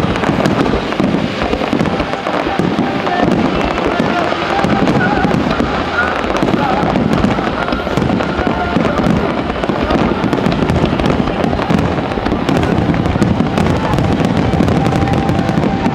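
Fireworks starmine barrage: many shells firing and bursting in quick succession, so the booms run together into one continuous din, with sharp crackles scattered through it and thickest near the end.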